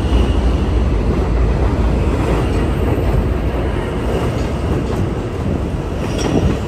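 An R160 subway train pulling out of an elevated station, its cars rolling past close by with a loud, steady rumble and rattle of wheels on rail. There is a sharp click about six seconds in, and the sound eases off slightly toward the end as the train moves away.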